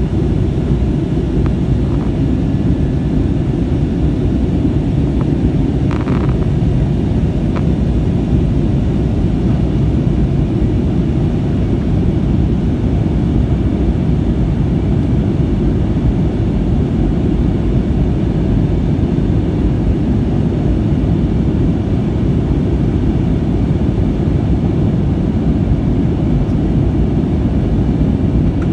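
Steady low roar of an Airbus A321neo in flight, heard inside the cabin: engine and airflow noise from its Pratt & Whitney PW1100G geared turbofans, with a brief faint rattle about six seconds in.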